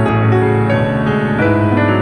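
Background piano music: gentle chords and a melody played steadily.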